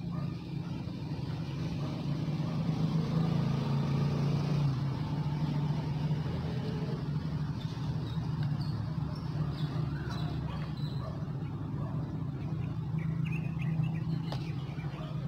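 A steady low engine hum, swelling slightly a few seconds in.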